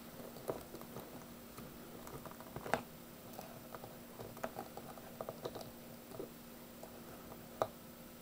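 Light, irregular clicks and taps of hands handling a hard plastic action figure, with two sharper knocks, one near the three-second mark and one near the end.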